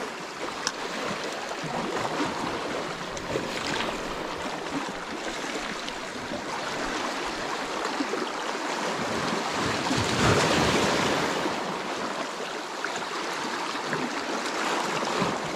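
Small sea waves washing over shoreline rocks: a steady rushing wash that swells louder about ten seconds in, with a few faint clicks.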